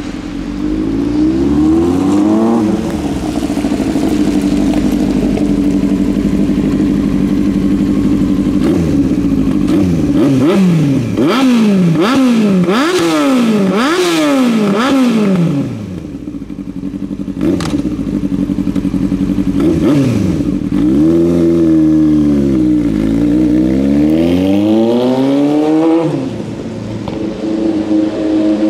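Yamaha R1's inline-four engine. It runs at steady revs, then gives a rapid series of about five sharp throttle blips, each rising and falling quickly. Later it drops, revs up and down again, and climbs as the bike pulls away near the end.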